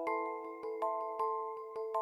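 Background music: a bright, bell-like melody of struck notes, about five a second, each ringing on under the next.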